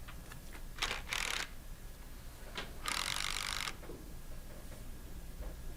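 Ratchet wrench tightening the small clamp bolts on a Versamatic metal diaphragm pump: a short run of rapid clicking about a second in and a longer run about three seconds in, with a few light metal clicks between.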